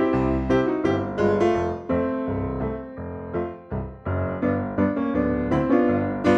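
Background music played on piano, a quick run of struck notes that each fade after they are hit.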